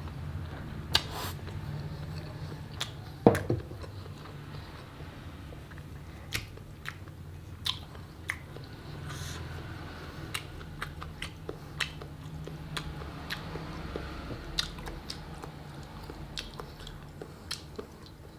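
Close-up eating of chicken feet and immature eggs in Thai-style sauce: wet chewing and biting with irregular sharp smacks and crunches, the loudest about three seconds in. A steady low hum lies underneath.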